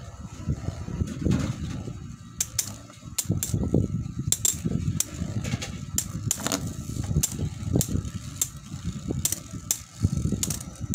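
Two Metal Fight Beyblades, L-Drago Destroy on a Final Drive tip and Diablo Nemesis on an X:D tip, spinning against each other with a low whirr from their tips on the stadium floor. Their metal wheels strike again and again, giving sharp clicks at irregular intervals, several a second at times.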